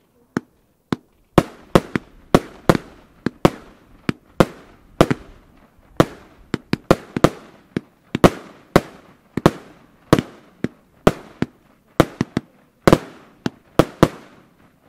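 Fireworks battery firing a rapid volley of aerial shots: sharp bangs about two a second, each trailing off briefly, after two isolated bangs at the start.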